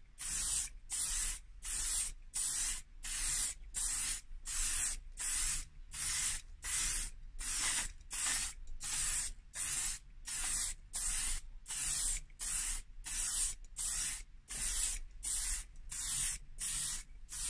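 Aerosol can of clear lacquer spraying in short, even bursts, about two a second, as the nozzle is pressed and released, laying the second coat of lacquer.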